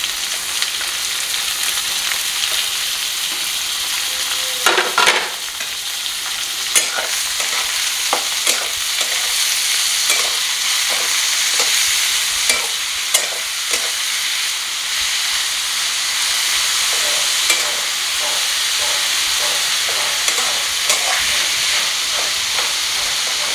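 Chopped onions and tomatoes sizzling in hot oil in a kadhai (Indian wok) while being stirred, a spatula scraping and tapping the pan every second or two. There is one louder burst about five seconds in.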